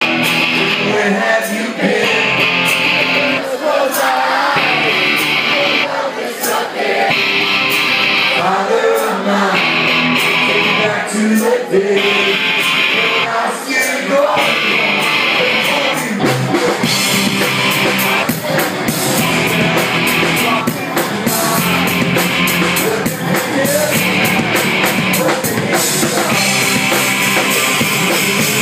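Live rock band playing: a male lead singer sings over electric guitar and drum kit. The drumming becomes busier about halfway through.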